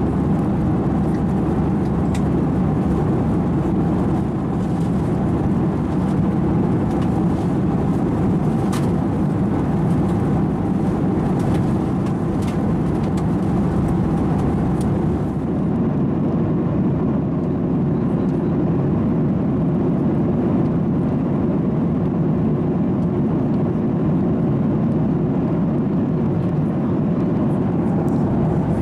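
Steady cabin noise of a Boeing 737-800 at cruise, heard inside the cabin: a constant low rush of airflow and engine noise. Its thin top-end hiss drops away about halfway through.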